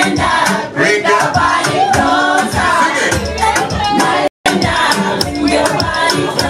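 Upbeat dance music with singing over a steady beat. It cuts out completely for an instant about four seconds in.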